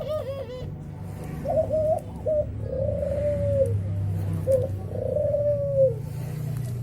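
A male Brenggolo bird calling to a female: a quick warbling run of notes, a few short notes, then two long drawn-out calls that hold level and drop away at the end, a little over a second apart.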